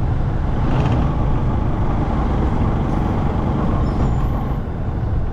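A small road vehicle riding along a street, its engine running steadily under a constant rush of road and wind noise.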